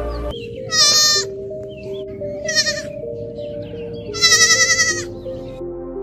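Young goat bleating three times in high, quavering calls, the last one the longest, over slow background music.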